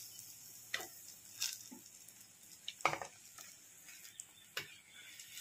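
Banana fritters deep-frying in hot oil in a kadai, a faint steady sizzle, while a perforated metal skimmer lifting out the fried fritters clicks and scrapes against the pan four or five times, the loudest about three seconds in.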